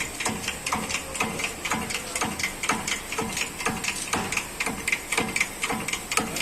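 Hand-pumped hydraulic shop press being worked to press a new wheel bearing into a steering knuckle, with quick, even clicking, about three or four clicks a second.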